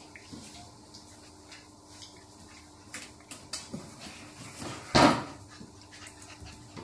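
Barbet puppies scuffling on a tiled floor: scattered light clicks, taps and scrapes, with one loud short rushing burst about five seconds in.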